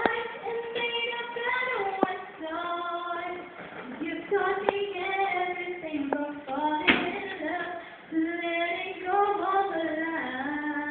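A woman singing into a handheld microphone, holding long notes and sliding between pitches. A few sharp clicks cut through, the loudest about seven seconds in.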